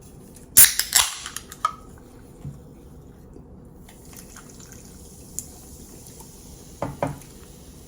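A carbonated ginger ale being opened: a sharp pop and hiss about half a second in, followed by a few small clicks. Two soft knocks come near the end.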